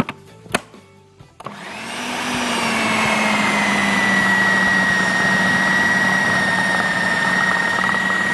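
Electric food processor with a few clicks, then its motor starting about a second and a half in and running steadily with a high whine, the blade mixing a thick dough of flour, eggs, oil, milk, grated cheese and olives. The whine dips slightly as it takes up the dough, then holds steady.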